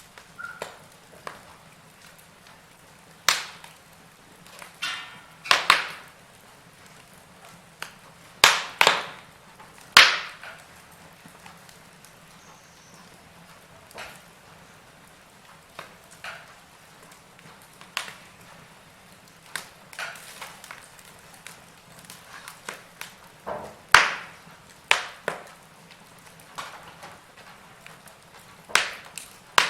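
Wood fire with burning logs crackling: irregular sharp pops and snaps, some loud, over a soft steady background hiss.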